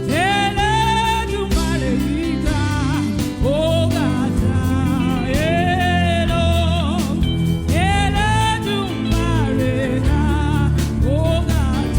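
Gospel singing: a solo voice sings long held phrases with vibrato, in several separate lines, over instrumental backing with bass and drums.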